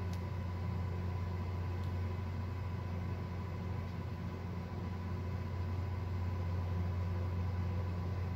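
Steady low background hum, with a faint click at the start and another about two seconds in.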